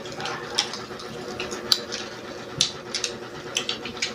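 Close-miked eating: irregular sharp crunches and clicks, a few a second, as crispy fried food is bitten and chewed, over a faint steady hum.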